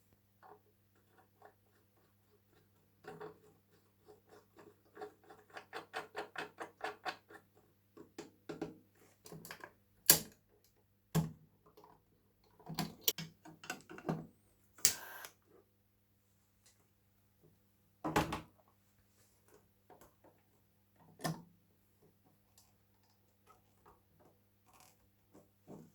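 A series of light clicks and knocks from small hard objects being handled, including a quick run of ticks at about five a second and one sharper click about ten seconds in. A faint steady low hum runs underneath.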